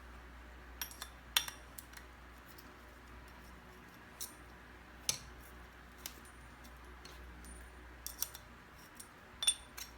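Metal parts of a stainless steel basin faucet clicking and clinking as it is taken apart, a dozen or so sharp knocks, some with a short metallic ring, loudest about a second in and near the end.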